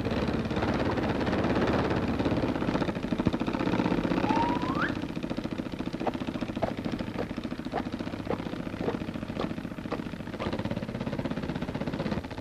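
A fast, steady mechanical rattle, like a running engine or machinery, with a single rising whistle about four seconds in and then a run of short, sharp strikes about twice a second.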